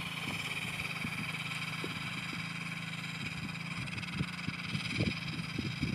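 A motorcycle engine idling steadily, with a few short low thumps about four to five seconds in.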